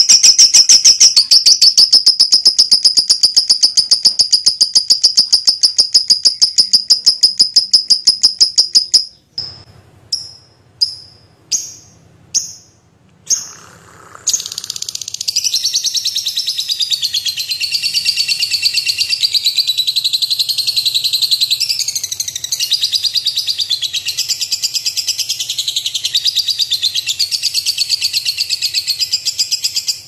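Fischer's lovebirds chattering in the long, rapid trill called ngekek. The first trill breaks off about nine seconds in into half a dozen single short chirps, then a second long trill, wavering in pitch, starts about fourteen seconds in and runs on.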